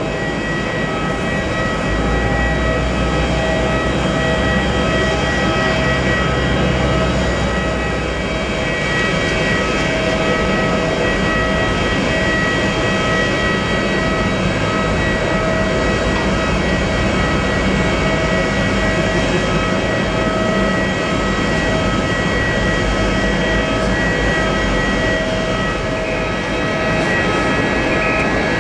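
Parked Airbus A321neo's auxiliary power unit running at the gate: a steady turbine whine with several high held tones over a broad rumble.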